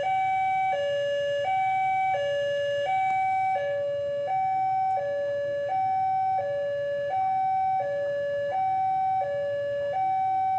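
Railway level-crossing warning alarm sounding its two-tone electronic signal. It alternates evenly between a lower and a higher tone, each held for under a second, which warns that a train is approaching.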